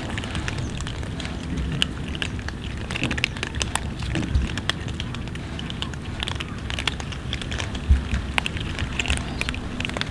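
A crowd of cats eating, with many irregular small crackles and clicks of chewing and crunching food.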